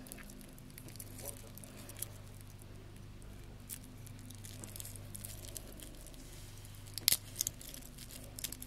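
Light metallic clicks and rattles of a stainless steel link watch bracelet and its fold-over clasp being handled, with a sharp cluster of clicks about seven seconds in.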